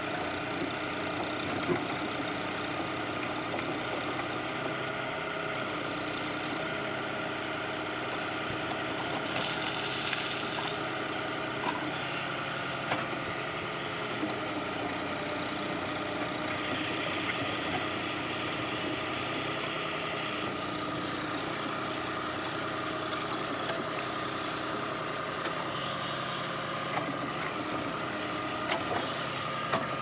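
Farm tractor's diesel engine running steadily while driving a BULL tractor-mounted backhoe as it digs soil, with a few short knocks and a couple of brief stretches of hiss.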